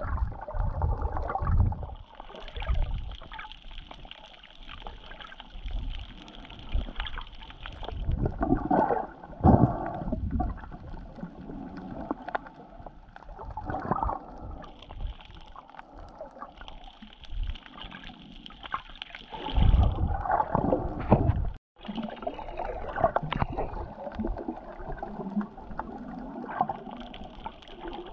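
Muffled water sloshing and gurgling heard through a camera housing held underwater while snorkeling, with irregular low thumps and swells.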